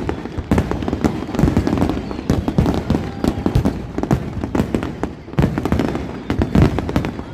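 Fireworks going off in a rapid, irregular barrage of many bangs and crackles.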